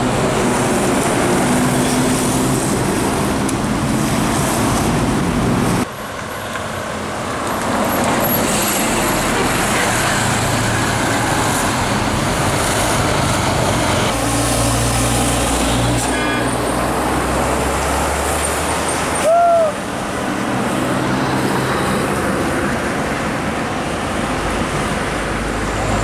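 Tour coaches driving past one after another, their diesel engines running with road noise, and horn toots among them. A short, loud horn blast comes about three quarters of the way through.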